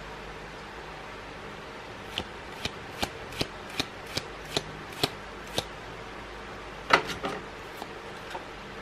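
A stack of Magic: The Gathering cards being flipped through one at a time, each card moved to the back with a short crisp snap. The snaps start about two seconds in at roughly two or three a second, with a louder rustling snap about seven seconds in.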